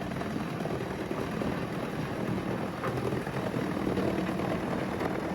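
Eschlböck Biber 84 wood chipper running steadily.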